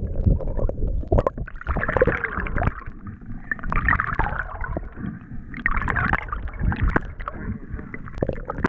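Underwater sound from a camera below a kayak's hull: water gurgling and rushing against the housing, with a low, uneven rumble, bursts of hiss and scattered knocks.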